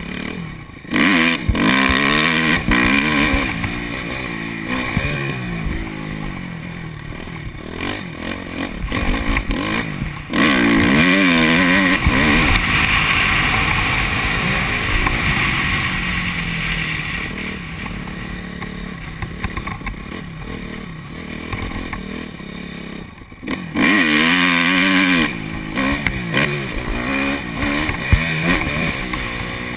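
2005 Honda CRF250 dirt bike's single-cylinder four-stroke engine under way, its pitch rising and falling again and again as the throttle is worked. It opens up hard and gets suddenly louder about a second in, again around ten seconds and again around twenty-four seconds.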